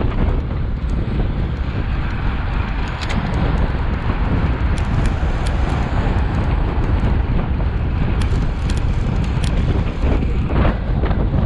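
Heavy wind buffeting on a bicycle-mounted camera's microphone while riding, with cars passing in the next lane. A few light clicks sound in the middle.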